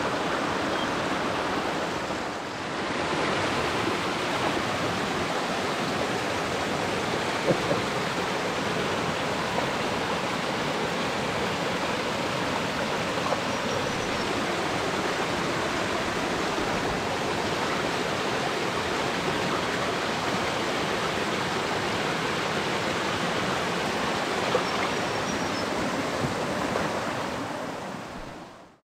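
Creek water running, a steady rush that fades out near the end.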